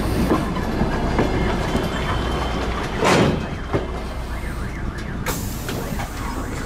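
DR1AM diesel multiple unit rolling along the track with a steady low rumble of wheels on rail, and a louder clatter about three seconds in.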